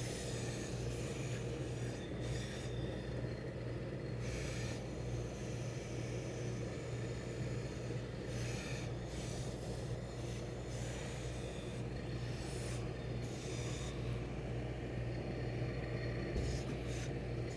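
Hose-fed steam iron pressing a wool suit sleeve panel: the soleplate rubbing and sliding over the cloth above a steady low hum, with short hisses of steam every few seconds.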